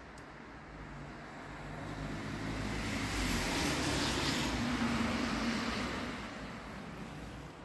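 A road vehicle passing by out of sight: a rushing noise that swells to a peak about four seconds in, then fades away.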